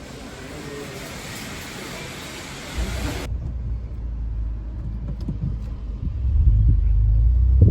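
A steady hiss, then, after an abrupt change about three seconds in, a low rumble that grows louder, typical of road noise inside a moving car.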